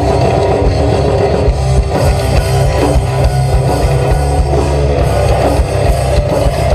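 Live heavy metal band playing loud, with electric guitars and a drum kit, in an instrumental stretch with no singing.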